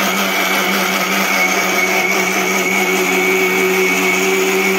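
Electric mixer grinder motor running steadily at full speed, grinding onion, green chillies and garlic into a paste in its jar, with a constant hum.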